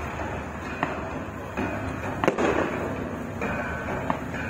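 Aerial fireworks going off: a few pops, with one loud bang a bit over two seconds in.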